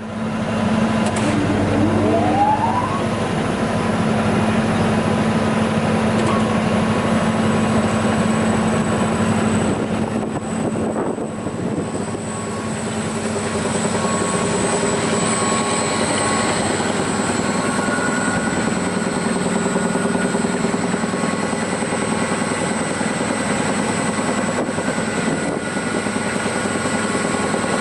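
Klöckner 120×400 wood chipper-shredder running steadily, with a steady high whine and a short rising tone about two seconds in.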